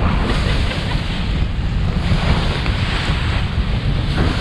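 Strong wind buffeting the microphone high up a sailing boat's rigging, with the steady rush of waves below.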